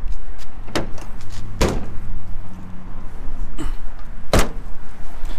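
Rumble and rustle of a camera handled against a nylon puffer jacket, broken by three sharp knocks: about a second in, near two seconds, and past four seconds. A low steady hum sits under the middle part.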